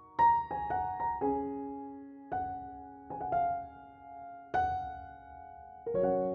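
Background piano music: a slow melody of single notes and chords, each struck and left to ring out.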